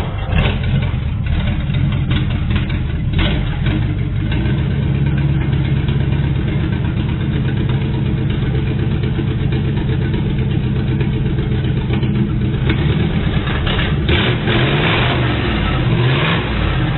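Car engine running steadily, its pitch rising and falling a few times near the end as it is revved.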